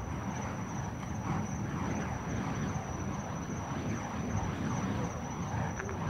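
Burning fire poi whooshing as they are swung in circles: repeated rushing swishes of the flames passing through the air, over a steady low rumble.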